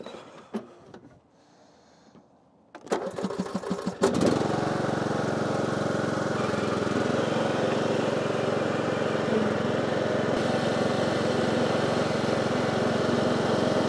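Husqvarna riding lawn mower's engine being started. It cranks for about a second, catches about four seconds in, and then runs steadily.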